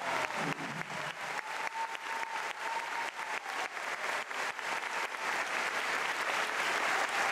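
Large theatre audience applauding, dense clapping that grows a little louder toward the end, as the last notes of the orchestra and choir die away in the first second.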